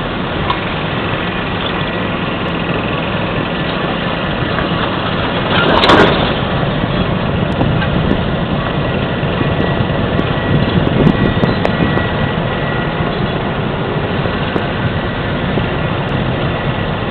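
A steady engine running, with a brief louder burst of noise about six seconds in.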